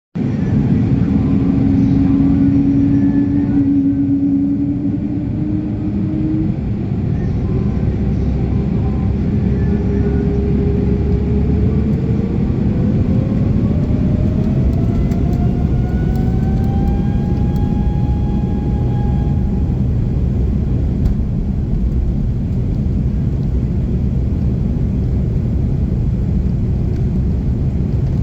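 Embraer E195 jet airliner taking off: engines at takeoff power over a heavy, steady rumble, with a whine that rises steadily in pitch through the first two-thirds and fades out about twenty seconds in.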